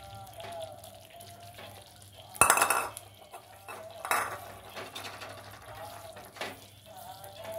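Metal spatula scraping and knocking against a steel pan while stirring a thick mixture of flour and ghee. There is a loud scrape about two and a half seconds in, another about four seconds in, and a sharp click near the end.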